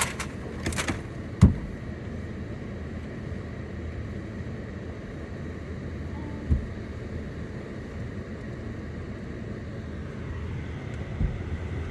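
A car on the move, heard inside the cabin: a steady low rumble of engine and road noise, with a sharp knock about a second and a half in and a couple of softer thumps later.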